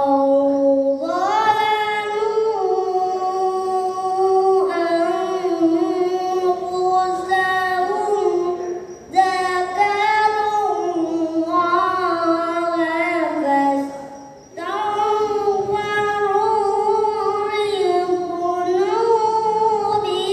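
A young boy reciting the Qur'an in melodic tilawah style into a microphone: long held, ornamented notes that rise and fall, in three drawn-out phrases with breaths about 9 and 14 seconds in.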